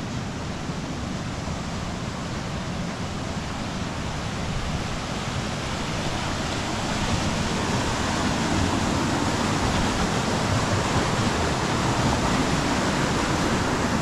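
Rushing water of a river cascade, a steady wash of noise that grows louder about halfway through.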